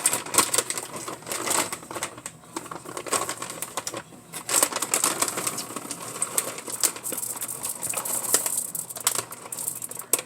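Semi-sweet chocolate chips poured from a bag into a bowl of cookie dough: a dense rattle of many small hits, with brief lulls about two and four seconds in.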